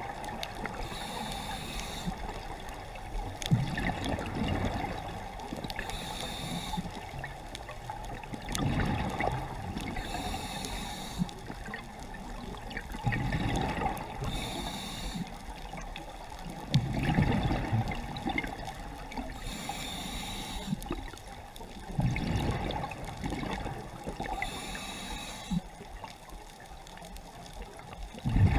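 Scuba diver breathing underwater through a regulator: a hiss with each inhalation, then a low bubbling rush of exhaled air, repeating about every four to five seconds, six breaths in all.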